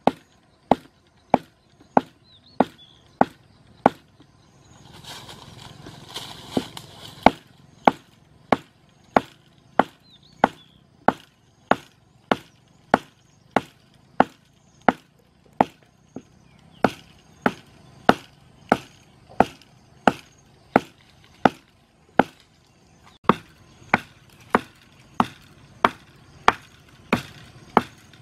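Rhythmic chopping: sharp blows at an even pace, a little under two a second. A burst of rustling hiss comes in about five to seven seconds in.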